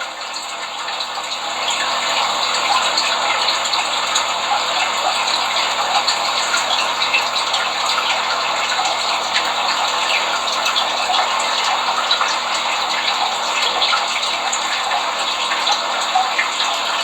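Steady, loud rushing hiss, like running water. It swells over the first second or two and then holds level, with a fine crackle throughout.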